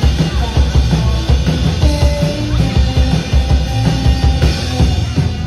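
Live rock band playing: electric guitar, electric bass and a drum kit.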